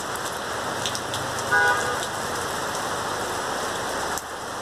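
Heavy rain falling steadily, with a brief horn toot about a second and a half in and a few drip taps.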